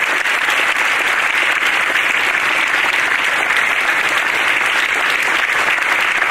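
Lecture audience applauding steadily: sustained hand-clapping welcoming a speaker to the podium.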